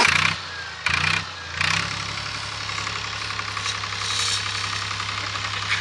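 Massey Ferguson 247 tractor's three-cylinder diesel engine running steadily as the tractor drives past, with two short loud bursts of noise in the first two seconds.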